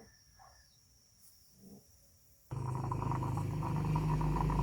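Stovetop espresso maker (moka pot) on the fire: after a faint stretch, a loud rough gurgling and sputtering starts abruptly about halfway through and grows louder, the sign that the water has come to the boil and coffee is being forced up into the top chamber.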